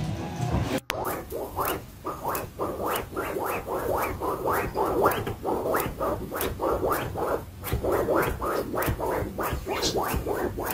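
A cat clawing sofa upholstery: a steady series of rasping scratch strokes, about three a second, starting about a second in.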